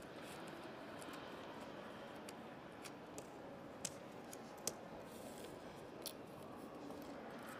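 Thin wooden kumiko strips clicking lightly against each other and the board as they are lined up and straightened by hand: a few scattered sharp clicks, the loudest near the middle, over a steady room hum.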